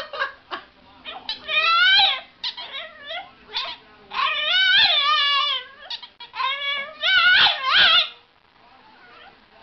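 Boston Terrier puppy making high-pitched, wavering howling whines: three long drawn-out calls with short yips between them.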